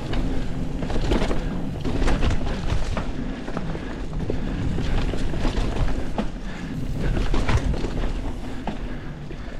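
Mountain bike being ridden along a dirt trail: wind rushing over the microphone, tyres rolling and the bike rattling, with frequent irregular knocks as it goes over bumps.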